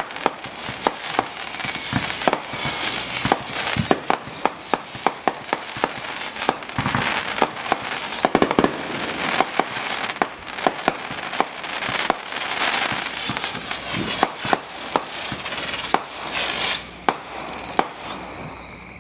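Fireworks finale: a rapid barrage of aerial shell bursts with crackle between the bangs, and several short whistles dropping in pitch in the first few seconds. The barrage thins out about two seconds before the end.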